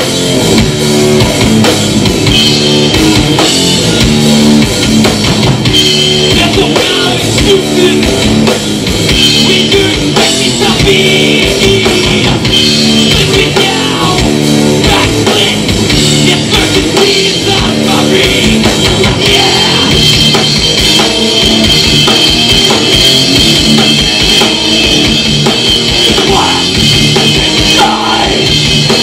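A rock band playing live, loud, with drum kit and guitar.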